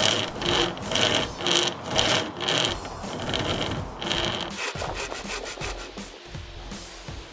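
Chainsaw chain strung between stick handles, drawn back and forth around a sapling's trunk: a rasping wood cut at about two strokes a second, turning to quicker, fainter strokes about two-thirds of the way through.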